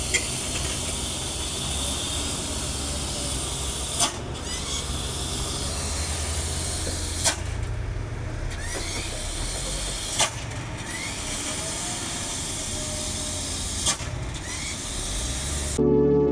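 Loaded tandem-axle dump truck's diesel engine running low under a steady hiss, with a sharp click every three to four seconds, each followed by a short rising squeak. Ambient music cuts in abruptly near the end.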